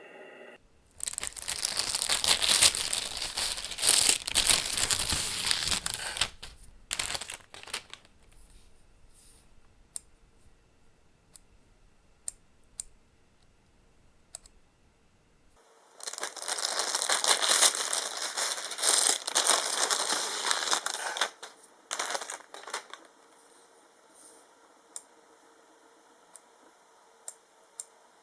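Two stretches of crinkling, rustling noise, each about six seconds long, with a few small clicks in the quieter gap between them and after the second.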